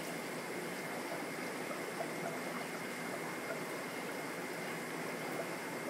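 Steady watery hiss and bubbling from the aerated water of a shrimp-rearing bucket, with faint scattered crackles and a faint steady high tone underneath.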